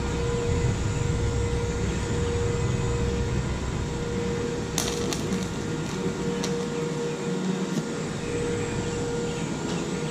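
Scratch-start TIG arc from a small portable inverter welder, a steady hiss with a steady hum, and a few sharp crackles about five seconds in.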